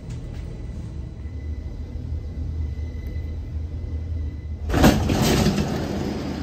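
Stockholm metro train running, heard from inside the carriage: a steady low rumble with a faint high whine, then a sudden loud rush of noise near the end that peaks at once and eases off.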